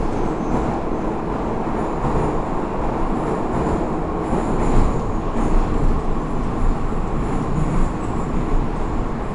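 St Petersburg Metro 81-556 "NeVa" train running at speed through a tunnel, heard from inside the car: a steady, loud rumble of wheels on rail, with faint high squeals coming and going.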